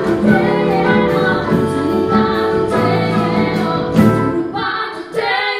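Live jazz-fusion band playing a song with two female singers, over piano, flute, bass and drums. About five seconds in, the bass and the other low instruments stop while the singing carries on.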